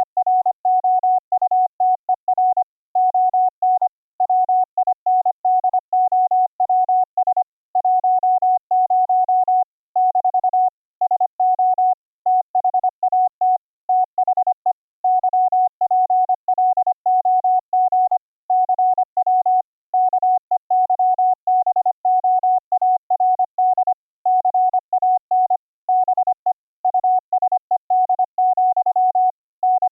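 Morse code (CW) generated by the YPLog CW keyboard program: a single pure tone keyed on and off at high speed in a continuous run of dots and dashes.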